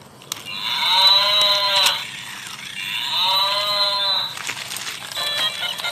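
Sound chip of a battery-operated toy animal playing a recorded cow moo twice, each call rising then falling in pitch and thin in the low end. A tinny electronic tune starts near the end.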